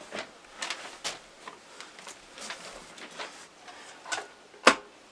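Plastic and metal garment-rack parts being handled and sorted: a scatter of light clicks and knocks, with one sharper knock near the end.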